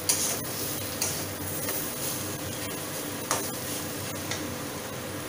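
Metal spatula stirring and scraping a besan and mawa mixture frying in ghee in a metal kadai, with a steady sizzle and a few sharp clicks of the spatula against the pan.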